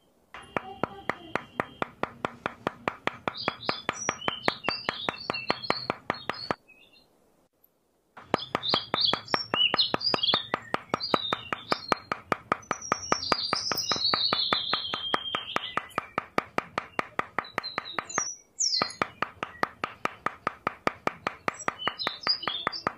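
A small hammer tapping wooden craft-stick posts down into sand in a quick, steady run of light taps, pausing twice. Birds chirp throughout.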